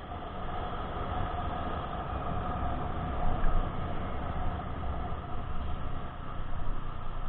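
Steady running noise of a motorcycle ride heard from the bike itself: engine, tyres on wet asphalt and wind blending into one even rumble with a faint steady whine.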